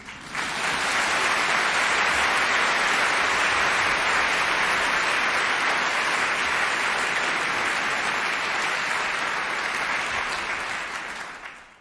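Theatre audience applauding steadily at the close of a ballet number, fading out near the end.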